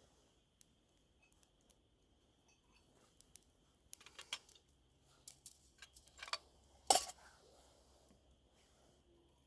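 Metal camp cookware being handled: light clinks and rattles, then a cluster of clanks and one loud sharp clank about seven seconds in, as pieces of a nesting pot, cup and grill set are knocked together.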